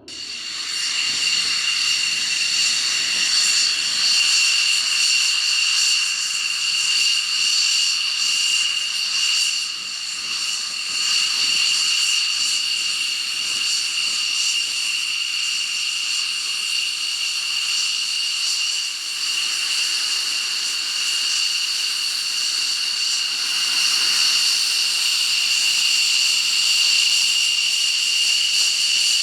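Jet engine running with a steady high-pitched whine over a hiss. The sound cuts in abruptly and holds nearly constant throughout, with slight dips in level about ten seconds in and again near the twenty-second mark.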